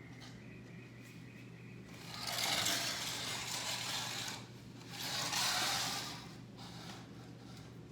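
Clear plastic sneeze-guard panels and their brackets scraping as they are slid and fitted together: two scraping stretches, one starting about two seconds in and lasting about two seconds, a shorter one about five seconds in, over a low steady hum.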